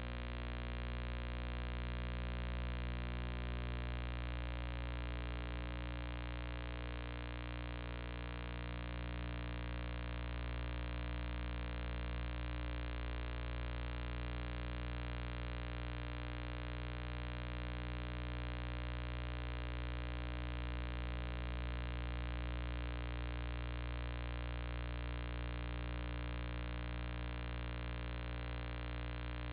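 Steady electrical hum with a buzz of many overtones, unchanging throughout.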